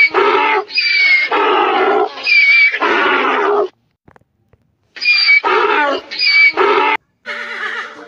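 Onager (Asiatic wild ass) braying: a run of loud, harsh see-saw calls, each about half a second, then a pause of about a second and a second shorter run. Music comes in near the end.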